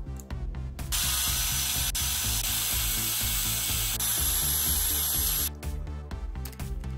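Bosch GSR 14.4-2 cordless drill driver running for about four and a half seconds, driving screws out of a battery pack's case, with a short break twice. The motor and gearbox give a steady high whine.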